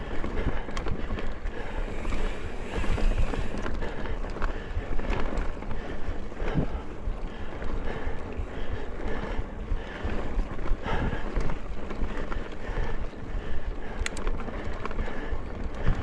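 Mountain bike riding over dirt singletrack: a steady rumble of tyre and trail noise, with scattered small rattles and knocks from the bike and wind buffeting the microphone.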